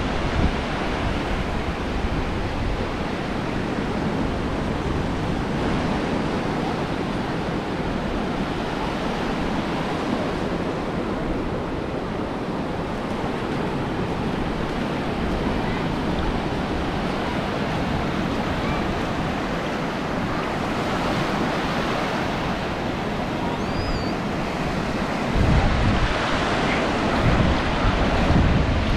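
Ocean surf breaking continuously on a beach, with wind rumbling on the microphone that grows heavier in the last few seconds.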